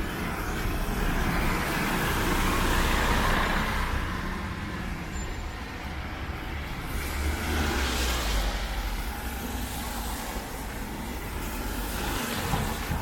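Road traffic on a rain-soaked street: tyre hiss and engine rumble of vehicles passing, swelling about two to four seconds in and again around eight seconds, over steady heavy rain.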